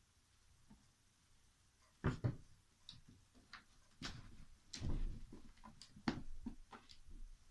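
A cat clambering at a cardboard box: irregular knocks, thumps and scrapes, starting about two seconds in.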